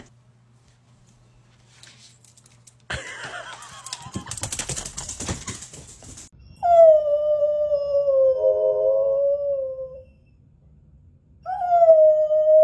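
A long-haired shepherd-type dog howling: two long howls, each starting higher and sliding down, wavering near its end, the second starting about a second and a half after the first stops. Before them comes a few seconds of rustling, scraping noise.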